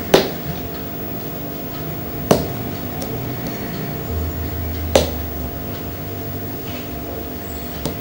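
Embroidery needle working pink silk thread through black silk-cotton fabric in buttonhole-stitch filling: a sharp tap about every two and a half seconds, four in all, over a low steady hum.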